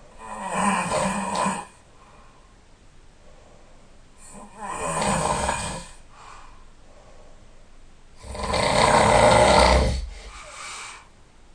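A sleeping person snoring loudly: three snores about four seconds apart, the third the loudest and longest, with a softer breath after each of the last two.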